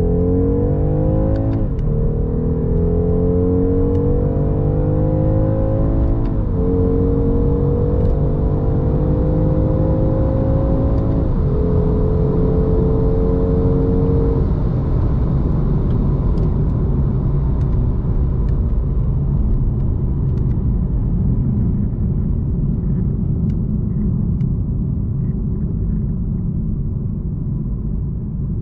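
2023 BMW 230i M Sport's 2.0-litre turbo four-cylinder at full throttle, heard from inside the cabin, rising in pitch through the gears with three quick upshifts of the eight-speed automatic. About halfway through, the engine note drops away, leaving a steady rumble of road and wind noise at high speed.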